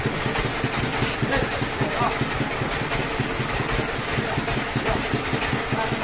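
Engine of a small band sawmill running steadily at idle with a fast, even chugging, while the saw is not cutting. There is a single sharp knock about a second in.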